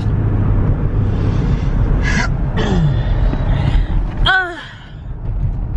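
Steady low rumble of road and engine noise inside a moving car, with a few short vocal exclamations over it, one sliding down in pitch about four seconds in. The rumble dips away for about a second near the end.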